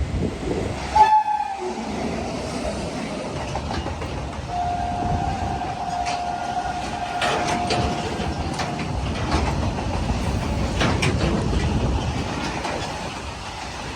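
Coal freight train hauled by two WAG-9 electric locomotives running past with a steady rumble. Its horn gives a short loud blast about a second in, then a longer steady blast from about four and a half to eight and a half seconds. Wheels click over the rail joints in the middle part.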